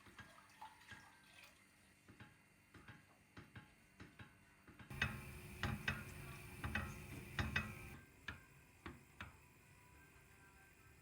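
Light kitchen clatter: scattered small clicks and knocks of utensils and dishes, busier and louder for about three seconds in the middle.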